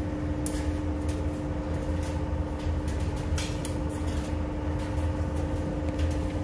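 Laundromat tumble dryer running: a steady motor hum as the drum turns. Brief irregular rattles come from the load tumbling inside.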